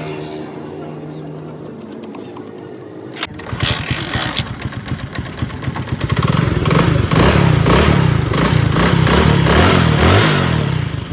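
Motorcycle engine running, with a steady low note for the first few seconds. About three seconds in it turns suddenly louder and rougher with a fast pulsing beat, and it is revved harder from about six seconds in.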